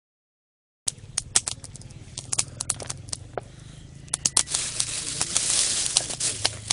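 Small wood fire of sticks crackling, with many sharp irregular pops, starting just under a second in; a louder hissing rush swells about halfway through and fades again.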